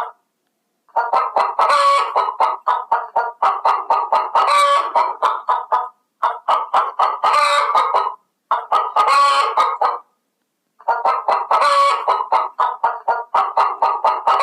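Chicken clucking in runs of quick clucks, about five a second. The runs last one to three seconds and are broken by short silences.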